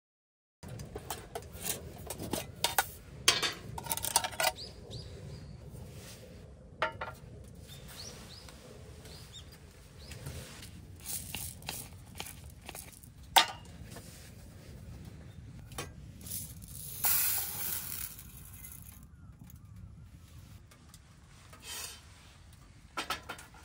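Camp cookware and utensils being handled: scattered clinks, taps and knocks, with a brief rustling hiss about two-thirds of the way through.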